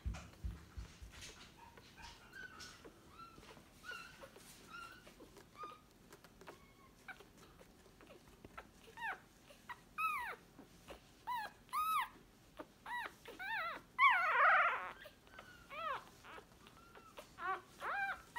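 Newborn Staffordshire Bull Terrier puppies squeaking and whimpering in short, high, arched squeaks. The squeaks come sparsely at first, then more often and louder in the second half, with one louder, rougher cry about fourteen seconds in.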